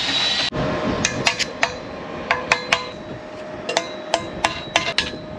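Plasma cutter cutting slots in quarter-inch steel plate: a steady hiss with a faint whine, broken by irregular sharp cracks and metallic clicks.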